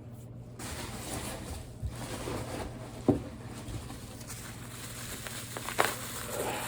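Rustling and handling of packaging and beer cans, with a sharp knock about three seconds in and a few lighter taps.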